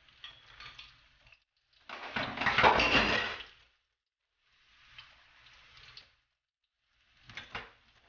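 Sliced ginger frying in sesame oil in a wok, sizzling and crackling in uneven bursts, the loudest about two seconds in and a short one near the end.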